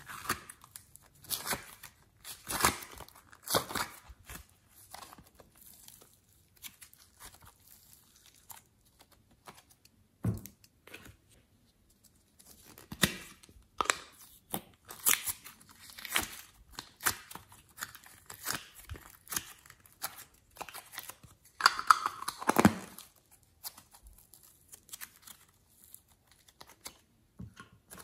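Thin plastic cups crinkling and crackling as fingers squeeze and peel soft clay out of them, in irregular bursts with quiet gaps, the longest and loudest stretch about three quarters of the way in.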